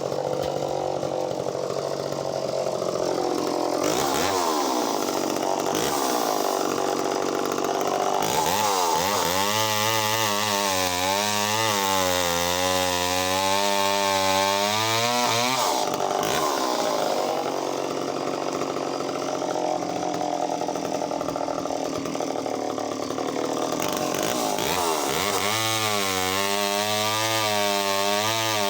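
Echo CS-451VL two-stroke chainsaw running hard while cutting logs. Its engine note dips and wavers under load in one long cut about nine seconds in and again near the end, and it revs more freely in between.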